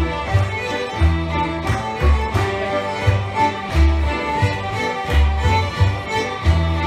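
Shetland fiddle group playing a lively traditional tune together on many fiddles, over a bass line and chords that pulse on the beat, about three bass notes every two seconds.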